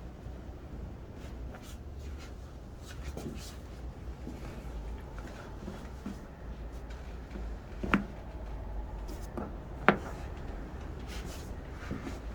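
Joint cracks during a chiropractic adjustment: two sharp pops about two seconds apart near the end, the second one louder. Under them runs a rubbing and rustling of hands on the body and clothing.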